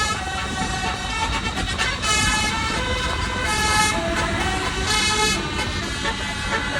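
Bus telolet horn, a Basuri-type multi-tone musical air horn, playing a tune of held notes that step from pitch to pitch every half second to a second, over a low engine rumble.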